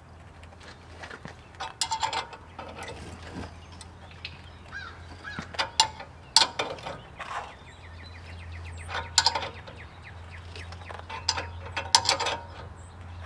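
Ratcheting wrench clicking in short bursts as it turns the forcing screw of a two-jaw puller that is pressing the Pitman arm off the steering box shaft, over a low steady hum.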